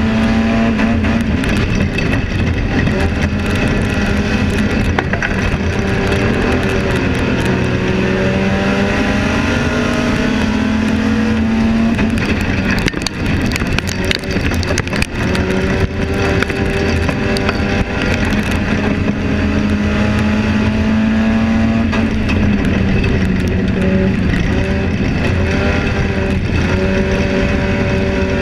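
Enduro stock car's engine heard from inside the cockpit, running hard around the track, its pitch climbing and falling again and again with each straight and turn. About halfway through comes a stretch of sharp knocks and rattles while the engine eases off.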